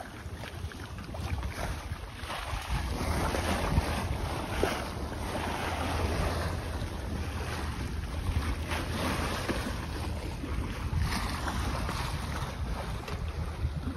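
Wind buffeting the microphone over the rush and splash of water along the hull of a sailing yacht under sail, getting louder a couple of seconds in.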